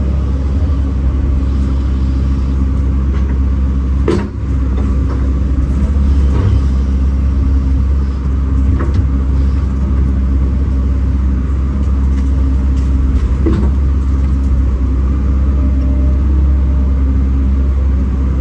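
Kobelco SK210 excavator's diesel engine running steadily as the machine works, with a few brief knocks and clunks from the machine.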